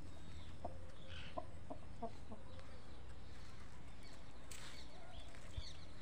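Aseel chickens clucking: a run of about six short, low clucks in the first couple of seconds, with a few higher, thinner chirps later on.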